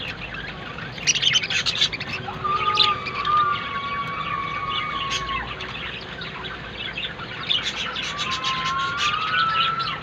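Pet budgerigars chirping and chattering in rapid bursts, loudest about a second in and again in the last few seconds. Two long, level whistling tones also run through it, one for about three seconds from near the start and a shorter one near the end.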